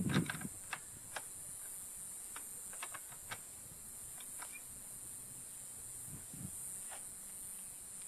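Faint, scattered clicks and light clinks of hand tools working on motorcycle suspension bolts, over a steady high-pitched hiss.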